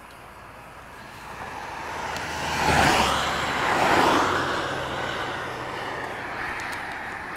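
A vehicle passing at speed on a motorway: a whooshing of tyre and engine noise that swells to a peak about three to four seconds in, then fades away.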